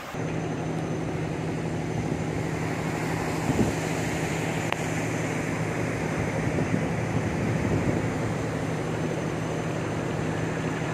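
Cargo ship's engine running with a steady low hum under a constant rushing noise.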